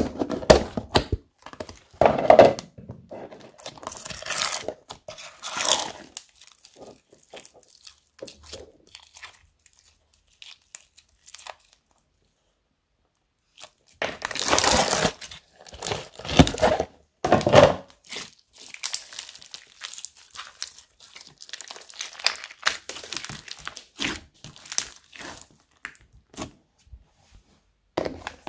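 Hands pressing, squishing and pulling old beaded slime out of plastic tubs: irregular wet crackles, crunches and squelches, with plastic lids and containers handled. A few seconds of dead silence fall in the middle.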